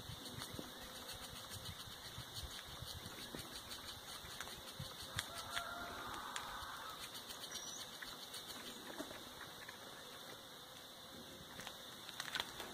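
A squirrel gnawing as it feeds: faint, rapid, irregular clicks and scrapes.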